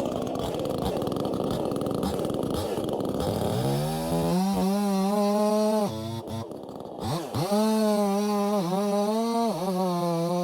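68cc two-stroke chainsaw cutting wood under load, then revving up to a steady high-pitched whine at full throttle about four seconds in. Near the middle the revs drop briefly and climb again, and there are a couple of short dips later.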